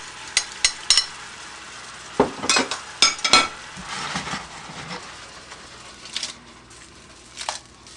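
Reduced sauce sizzling in a skillet while a utensil clinks and scrapes against the pan, stirring cooked mushrooms into the sauce. The clicks come thick in the first few seconds and thin out toward the end.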